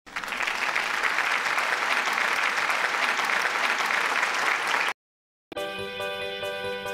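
Crowd applause that cuts off abruptly about five seconds in. After half a second of silence, music with sustained notes begins.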